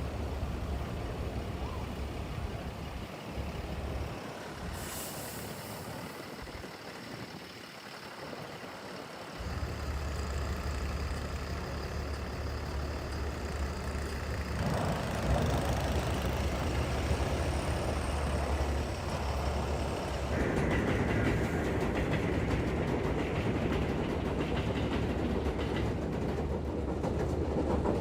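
Steady low vehicle rumble, growing louder about a third of the way in and again around halfway.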